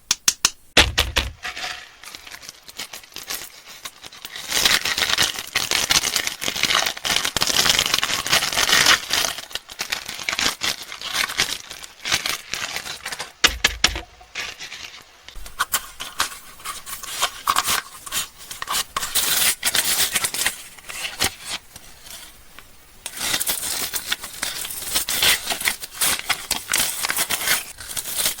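Candy wrappers being crinkled and torn open close to the microphone, with many small clicks and taps and several long spells of dense crinkling; a few soft low thumps, as of items set down.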